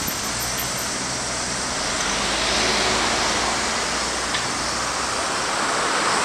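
A dense chorus of cicadas: a steady, high, hissing buzz that swells a little about halfway through, over a low rumble of city traffic.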